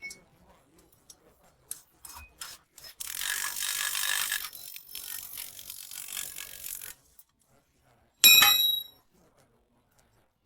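Metal work on an e-rickshaw wheel: a few light clicks, then a scraping rub for about four seconds, then one sharp metallic clang that rings briefly.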